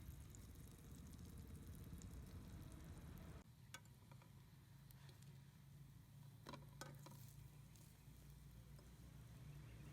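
Near silence: faint low room-tone hum, with a few soft clicks in the second half.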